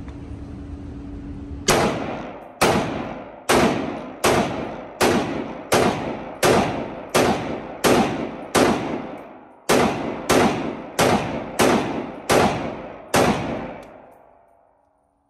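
Century Arms C308, a .308 roller-delayed blowback rifle, fired semi-automatically about sixteen times at a steady pace of roughly one shot every three-quarters of a second, with a slightly longer pause after the tenth shot. Each shot rings out with a long echo off the walls of an indoor range.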